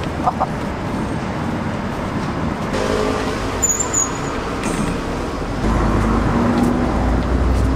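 Road traffic running steadily. A large vehicle's engine rumble swells in over the last two seconds or so.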